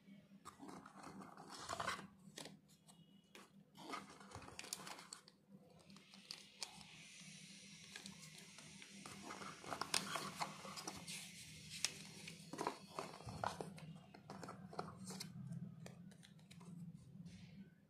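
Cardboard smartwatch packaging being handled and opened: irregular rustles and scrapes of card on card, with small knocks scattered throughout.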